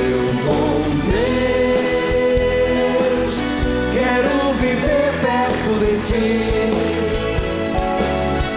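Live band playing a slow Christian worship song, with a male voice singing long held notes over it.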